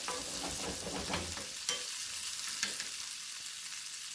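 Chopped onion, garlic, scotch bonnet pepper and tomato sizzling in hot oil in a nonstick skillet, with a steady hiss. A wooden spoon stirs and scrapes them for the first couple of seconds, then they fry on with a few crackles.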